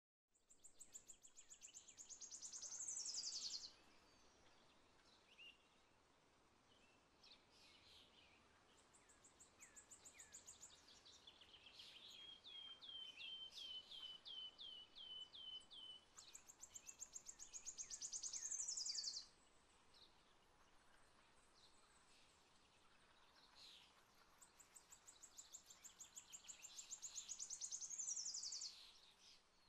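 Songbird singing faintly over a low hiss of background noise: three times a high, rapid trill that ends in a falling sweep, and in between a run of about ten short down-slurred whistles, roughly three a second.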